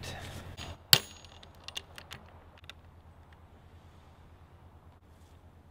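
Metal clinks from a hammer and small metal parts at a wooden workbench: one sharp clink about a second in, then a few lighter taps and clicks, over a low steady hum.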